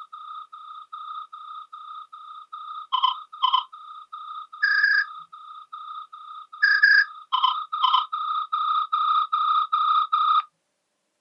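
Nokia 7210 polyphonic ringtone playing: a high note pulsing quickly, about four times a second, with brighter accent notes over it, growing louder in the last few seconds and then cutting off near the end.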